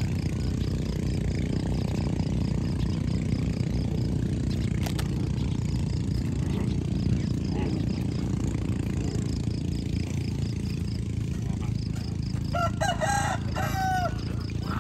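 Steady low rumble of outdoor background noise, with a short run of pitched animal calls near the end.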